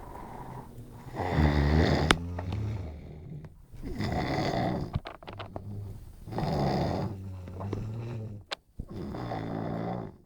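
A person snoring deeply in a steady rhythm, four rasping snores about two and a half seconds apart.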